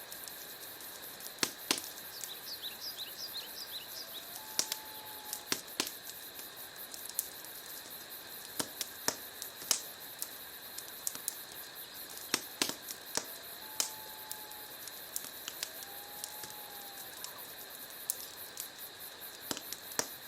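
Wood fire crackling in a fireplace: irregular sharp pops and snaps over a steady hiss.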